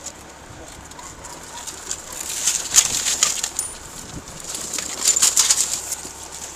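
Two bursts of rustling and scraping picked up on a body-worn camera's microphone, one about two seconds in and one about five seconds in, over a steady low hum.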